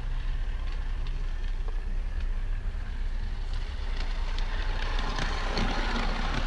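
Wind buffeting the microphone: a steady low rumble, turning rougher and hissier near the end.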